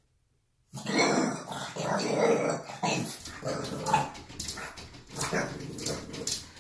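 French bulldog growling and barking at its own reflection, starting after a moment of silence. From about four and a half seconds in, quick clicks as it paws at the mirror.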